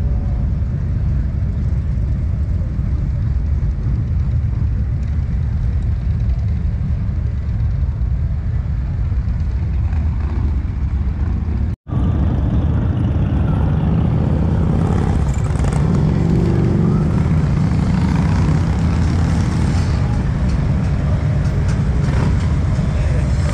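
Continuous low rumble of motorcycle engines. After a cut about halfway through, motorcycles ride past close by, one engine note rising and falling a few seconds later.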